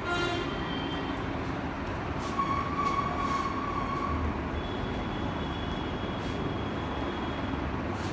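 Steady vehicle noise, with a few held tones over it: one at the start, another from about two and a half seconds in, and a higher one from about four and a half to seven and a half seconds.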